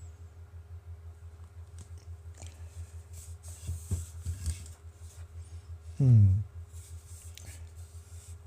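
Plastic glue bottle handled and squeezed over a steady low hum, with a few soft clicks, and about six seconds in a brief loud sound that falls steeply in pitch.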